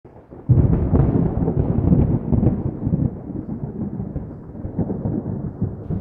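A loud rumbling noise that starts suddenly about half a second in and slowly dies away, then cuts off abruptly.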